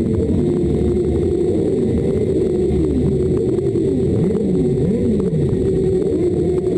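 Many motorcycle engines running together, several of them revving so that the engine pitch rises and falls again and again.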